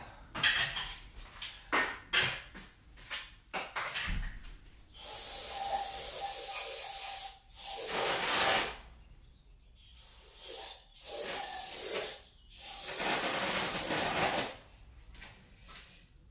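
Aerosol can of penetrating spray being sprayed onto seized studs and bolts of a cylinder head, so that it can soak in and free them. There are a few light clicks of handling first, then several sprays with short pauses between them, the longest about two seconds each.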